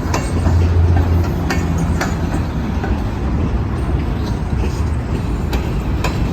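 CSX freight train rolling past, a loud low rumble with irregular sharp clacks of steel wheels over the rail joints.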